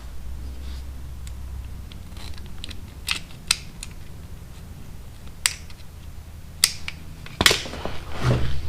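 Scattered sharp clicks and taps of small hand tools and parts being handled during a wiring repair, about six in all, the loudest near the end, over a low steady hum.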